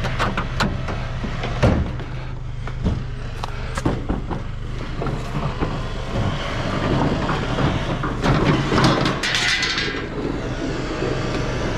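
Scattered knocks and clatter of discarded junk being picked up and moved, with a longer scraping rattle about eight seconds in, over a steady low hum.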